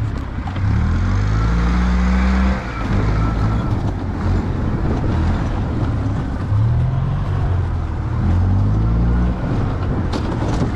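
2008 EZ-GO TXT golf cart's carbureted gas engine, warmed up, revving under throttle as it pulls the cart through snow. It revs up twice: the pitch climbs for a couple of seconds and drops back, then climbs again for about three seconds from about six seconds in.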